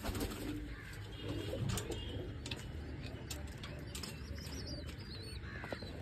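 Domestic pigeons cooing in a loft, a low murmuring that goes on throughout, with a few high chirps about four seconds in.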